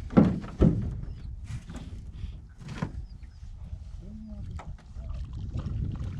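Small boat drifting on a lake: low wind and water noise, with two sharp knocks against the boat early on and a weaker one about three seconds in.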